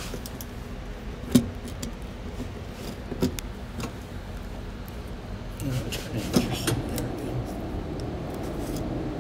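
Small clicks and scrapes of an antenna fitting being pushed and turned by hand in a freshly drilled hole in a car's sheet-metal body panel, to check the fit. A sharp click about a second in and another about three seconds in, then a few more small knocks a little past the middle, over a steady background hum.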